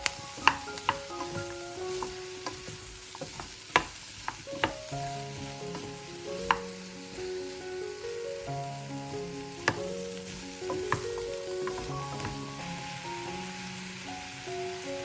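Food sizzling in a pot while it is stirred, with several sharp clicks of a utensil knocking against the pot. Soft melodic background music plays under it.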